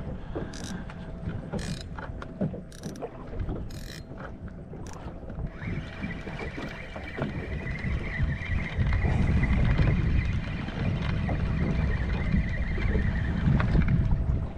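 Wind buffeting the microphone on a small open fishing boat, with scattered light clicks in the first few seconds. From about six seconds in, a steady whine joins as the line is wound in on a fishing reel; it stops just before the end.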